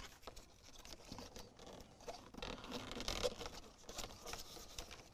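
Faint, irregular scratching and rustling of electrical wires being fed down between the car's A-pillar trim and the dashboard, with many light scrapes and taps of wire against plastic.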